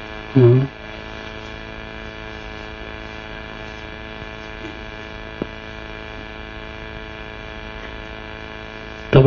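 Steady electrical mains hum. It is a constant buzz with many even overtones, broken by a brief spoken syllable just under a second in and a single faint click about five and a half seconds in.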